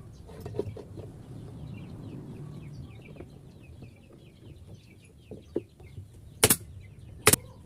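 A hammer knocking on wood twice near the end, sharp and loud, over a low steady rumble.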